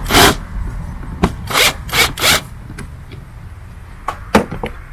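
Short rubbing and scraping noises, several in quick succession over the first two and a half seconds, then a few more near the end, over a steady low rumble.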